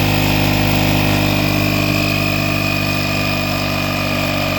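The VEVOR electric jack kit's built-in 12 V air compressor running steadily: a loud buzzing hum with a steady high whine over it.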